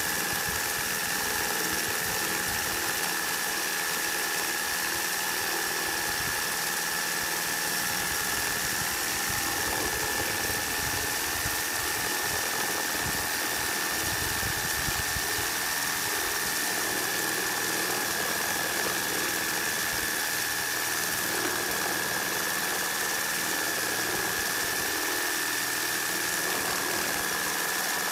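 Makita JR3050T corded reciprocating saw running steadily while cutting through a thick wooden beam, its motor under load. A steady high whine runs over the rattling saw stroke.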